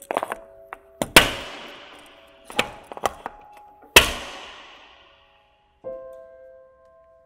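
Sharp clicks and knocks as a cycling shoe's cleat is set into a track pedal with toe clips and straps, the two loudest about a second in and about four seconds in, each ringing out in a long echoing tail. Soft sustained keyboard notes of music sound underneath.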